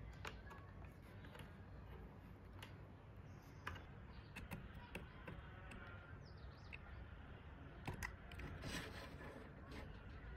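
Quiet handling of small metal and plastic parts of a model turbojet kit: scattered light clicks and taps as an Allen key works the set screw of a motor shaft coupling, with a few sharper clicks near the end over a low steady hum.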